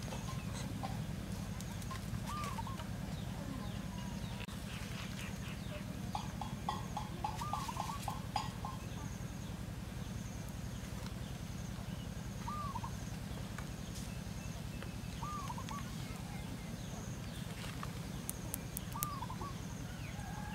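Birds calling in short arched notes: a quick run of calls about six to eight seconds in, and single calls now and then after, over a steady low hum.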